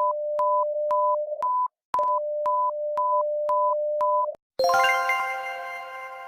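Electronic alert tones: a steady low tone with short higher beeps over it about twice a second, sounding in two runs of about two seconds each. Then a bright chime-like chord starts and fades away slowly.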